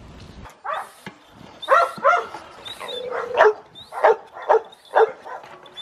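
A dog barking repeatedly: about seven sharp barks in irregular succession, one drawn out a little longer near the middle.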